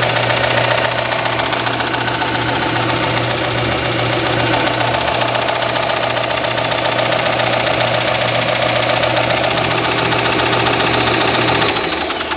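JET 6" x 48" belt and 10" disc sander running, a steady motor hum under the rhythmic noise of the belt, whose centre is hitting the frame a little each time it goes around, a sign that the belt may need changing. Near the end it is switched off and the sound falls away.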